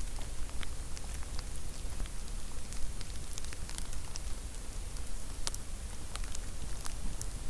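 Campfire firewood crackling: irregular sharp pops and snaps, a few a second, over a steady hiss.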